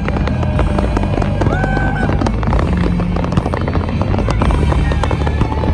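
Fireworks bursting and crackling in a dense, continuous barrage, over loud music with steady low bass notes.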